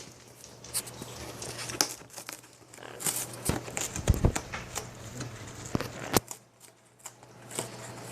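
Yellow-naped Amazon parrot chewing and tearing cardboard with its beak: irregular crunching, ripping and crackling, with a few sharper snaps about four and six seconds in. A steady low hum runs underneath.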